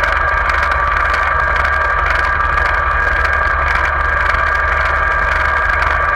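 Tractor engine running steadily at an even road speed, heard from the trailer it is pulling, with a steady low rumble beneath a constant engine note.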